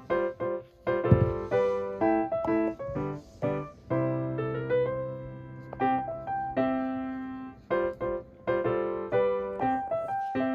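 Background piano music playing a melody of separate notes, with a single low thump about a second in.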